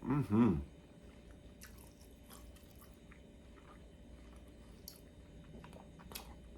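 A person chewing a mouthful of tender chicken in sauce, with faint wet mouth clicks, after a short hummed sound of approval right at the start.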